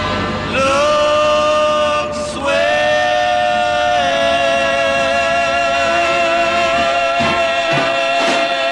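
Sweet soul music: a vocal group holding long harmony chords over the band, with no lead lyrics, the chord changing a few times.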